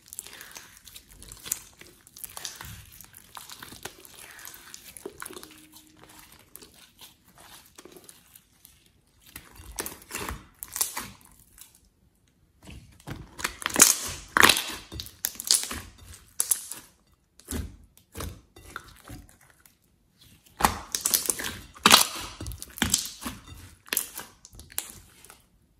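Hands stretching, pulling and squishing a thick, glossy slime: a dense run of small sticky clicks and pops. It is quiet at first, then comes in two louder spells, around halfway and again near the end.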